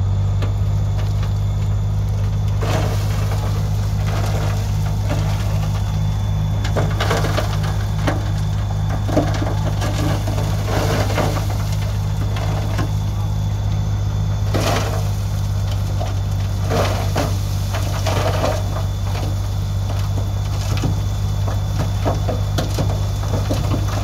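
Dump truck's heavy diesel engine running steadily with a low, even pulse as the tipper body lifts. Rocky soil slides and tumbles out of the tailgate in irregular clattering, crunching spills that start about three seconds in and come and go.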